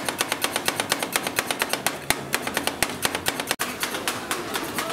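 Rapid, even tapping, about nine sharp strokes a second; it cuts out briefly about three and a half seconds in, then goes on fainter and less even.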